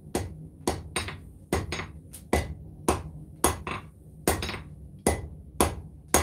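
Hand hammer striking red-hot 1095 high-carbon steel on an anvil, forging a knife blade: about two blows a second, heavier and lighter blows alternating, each with a short metallic ring, over a steady low hum.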